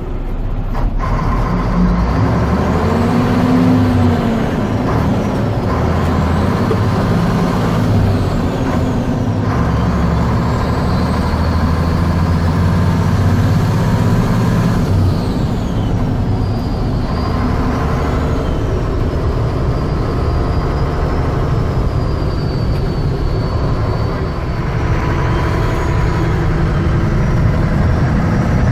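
1978 Mack CF611 fire truck's turbocharged Mack ENDT673 Thermodyne diesel, heard from inside the cab, pulling away and working up through the gears of its Spicer 5-speed, the engine note dropping and climbing again at each shift.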